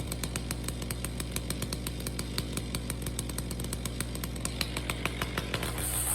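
Chainsaw engine running at idle with a fast, even ticking, starting to rev up right at the end.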